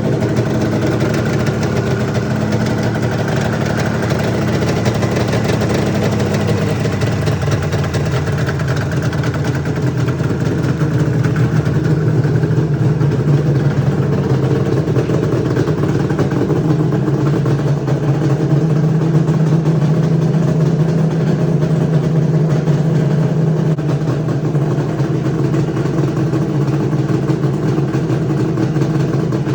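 1996 Arctic Cat ZRT 600 snowmobile's two-stroke engine running at idle after its first start in years, its note changing about seven seconds in.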